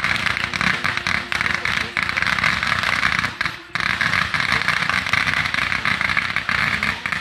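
Ground fountain firework spraying sparks with dense, continuous crackling. The crackle cuts out briefly about three and a half seconds in, then starts again.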